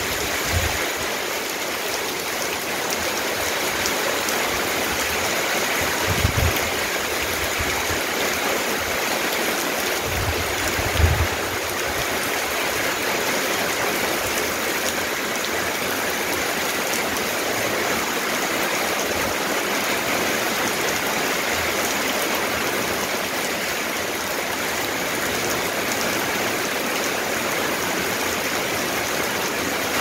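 Steady rain falling on a wet tiled courtyard and garden: a constant, even hiss. Brief low rumbles come about six and eleven seconds in.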